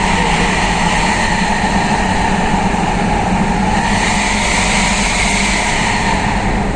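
Suzuki APV van's four-cylinder engine running steadily through an aftermarket racing exhaust, with the low, snoring (ngorok) drone the exhaust is fitted to give.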